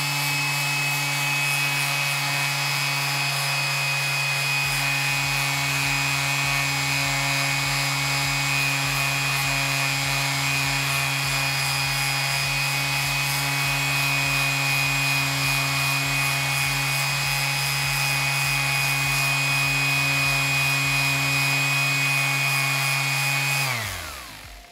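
Electric orbital sander set to its lowest speed, with 120-grit paper, sanding a 3D-printed PLA part to flatten the print's layer lines. The motor runs at a steady pitch along with the rub of the paper on the plastic, then winds down with a falling pitch and stops near the end.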